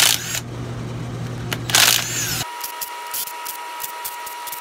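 Cordless impact gun running in two short bursts, its motor whine rising and falling, as it spins out cylinder-head bolts on a Copeland semi-hermetic compressor.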